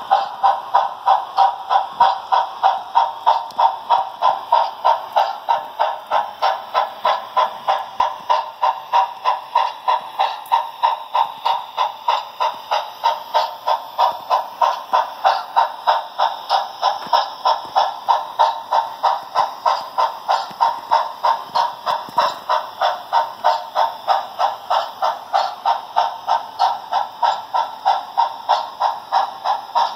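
Sound-equipped model steam locomotive in Southern 610 livery, its onboard sound playing steady steam exhaust chuffs at about three a second over a faint hiss. The chuffs sound thin, with little bass, as from a small speaker.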